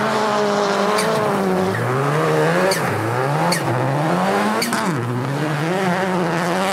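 Rally car's engine at high revs as it slides on an ice track. The pitch climbs and then falls back sharply several times as the throttle is worked through the slide.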